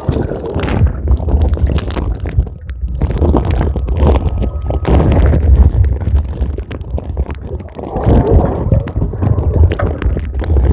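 Bag-wrapped camera moving through pool water, in and out of the surface: a steady muffled low rumble of water and handling noise, with many small crackles of the bag rubbing against the microphone.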